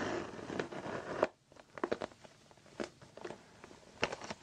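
Fingers handling a glossy holographic plastic makeup bag: about a second of dense crinkling and rustling, then scattered light taps and scratches of fingernails on its surface.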